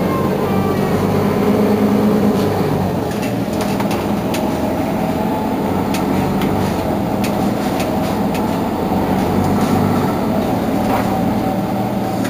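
Mercedes-Benz Citaro G C2 articulated city bus's rear engine idling steadily while standing at a stop, with a few light clicks in the middle and near the end.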